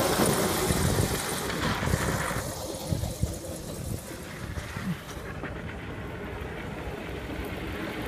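Modified 36-volt Power Wheels ride-on car driving over loose gravel, with a rough rolling, crunching noise. It is loudest for the first two seconds or so, then drops to a quieter low rumble with a few knocks.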